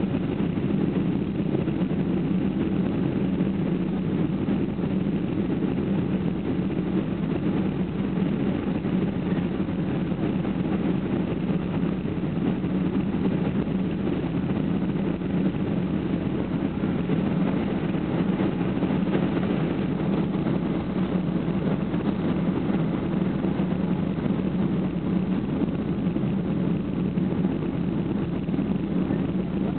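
Steady low drone of a Boeing 757-200's engines and rushing air, heard inside the passenger cabin.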